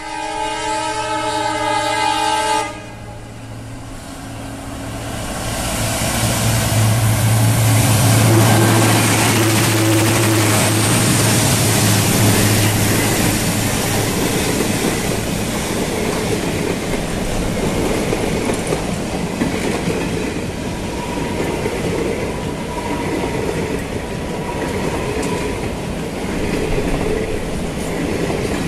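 An EMD WDP-4 diesel locomotive sounds its multi-tone air horn once for about three seconds as it approaches, then its two-stroke V16 engine drones past. Its passenger coaches follow, rolling by with wheels clacking over the rail joints.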